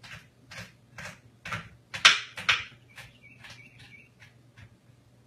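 Kitchen knife chopping garlic cloves on a wooden cutting board, about two sharp chops a second, the chops growing fainter in the second half.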